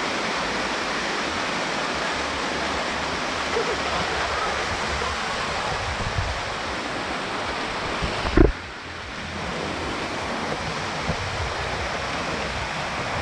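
Waterfall rushing over rock ledges, heard close up as a steady hiss of falling water. About eight seconds in there is one sharp thump, after which the water sounds duller.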